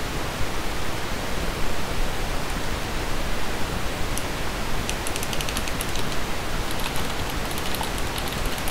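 Steady hiss of background noise. From about four seconds in come bursts of quick keyboard typing clicks as CSS is entered.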